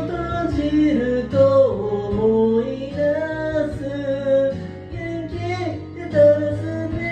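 Pop-rock band music led by guitar, with a melody line that moves in pitch over bass and drums.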